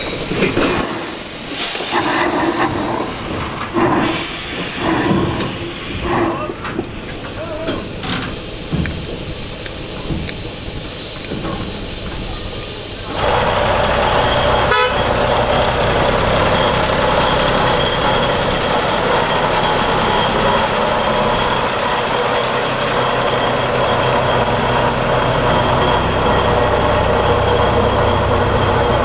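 Narrow-gauge steam locomotive letting off irregular bursts of steam hiss from its cylinders. About thirteen seconds in, this cuts to a small narrow-gauge diesel locomotive whose engine runs at a steady drone.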